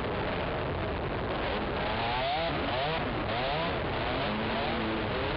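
ATV engine revving up and down repeatedly as the rider works the throttle over a rough trail, its pitch rising and falling several times and holding steadier near the end.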